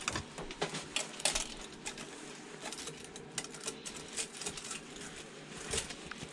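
Small metal parts and tools clicking and tapping irregularly while an old amplifier is dismantled by hand.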